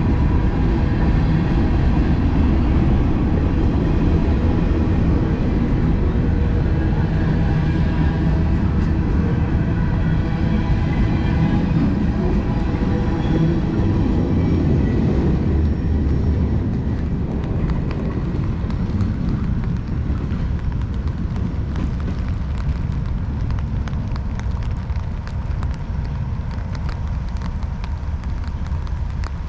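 Freight train cars rolling past on the track with a steady low rumble, which fades away over the second half as the train moves off.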